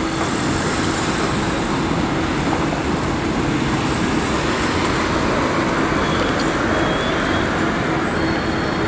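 Steady street traffic noise, with a continuous low engine-like hum under it.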